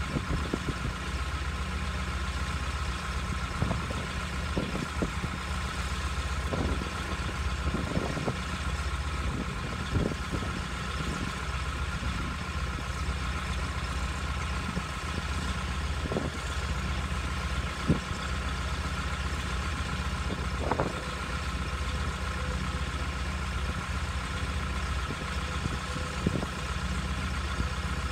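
A heavy engine running at a steady idle, with light knocks and clanks scattered through, one sharper than the rest about two-thirds of the way in.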